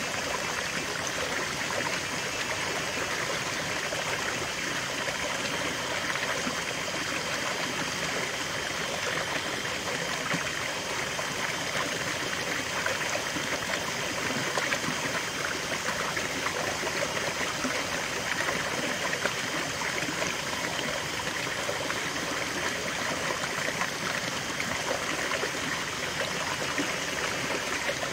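A small rocky stream running steadily, its water spilling over a low cascade between boulders into a shallow pool.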